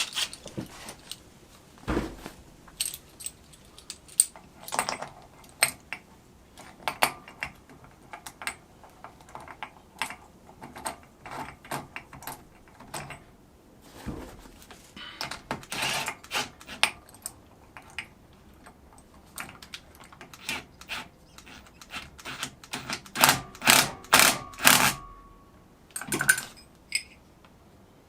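Metal tools and parts clinking and clanking in irregular sharp knocks while working on a cast iron drill press pulley, the loudest cluster near the end with a brief metallic ring.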